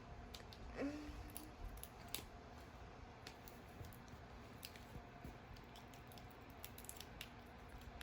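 Faint, scattered small clicks and light crinkles from an LOL Surprise ball's plastic packaging being handled and peeled. A brief voice-like sound comes about a second in.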